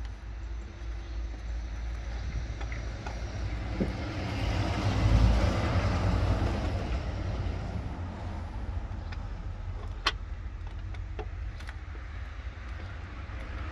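A road vehicle passing by, its noise swelling to a peak about five seconds in and then fading, over a steady low rumble. A single sharp click about ten seconds in.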